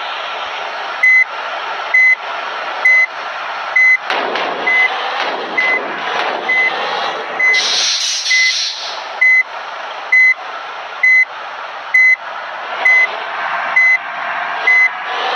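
A bus's reversing alarm beeping steadily, one short high beep a little under once a second, over the running engine. A loud hiss of air cuts in briefly about halfway through.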